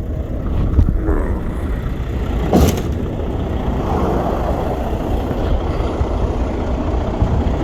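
Volvo VNL semi truck's diesel engine idling steadily, with a single clunk about two and a half seconds in as the truck's hood is shut.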